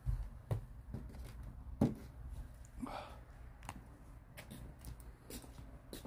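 Footsteps and phone-handling noise while walking: a series of soft, irregular knocks about once a second over a low steady rumble, with a brief higher sound about three seconds in.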